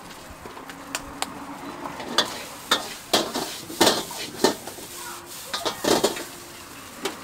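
A metal ladle scraping and clanking against a wok as fried rice is stir-fried, over a steady sizzle. The strokes come in a quick run from about two seconds in until about six seconds in, with a couple of lighter clicks before that.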